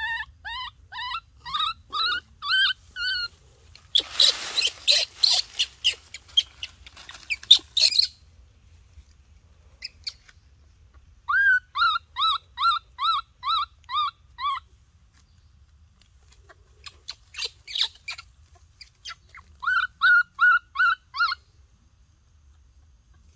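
Baby monkey crying in runs of short, high, squeaky calls, about three or four a second, with a stretch of louder, harsher, noisier cries about four seconds in.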